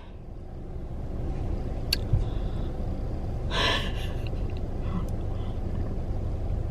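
A woman breathing out heavily once, about three and a half seconds in, over a steady low rumble of traffic outside the car, with a small click about two seconds in.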